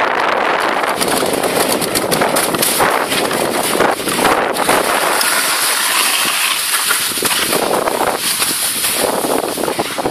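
Sled runners scraping and hissing steadily over packed snow and ice during a downhill run, with wind rushing over the microphone.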